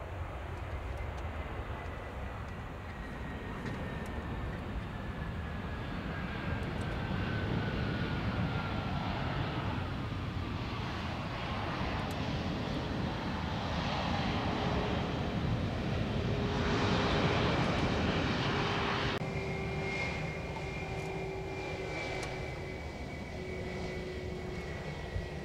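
Twin IAE V2500 jet engines of an Airbus A320 on its landing rollout: a steady jet roar with a whine that falls slowly in pitch, swelling to its loudest about two-thirds of the way through. A louder rush cuts off suddenly about three-quarters in, leaving the engines' steady high and low whines.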